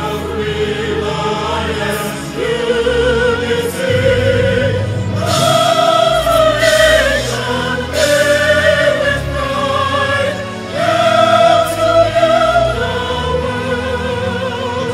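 Background music: choral singing with long, wavering held notes over a changing accompaniment.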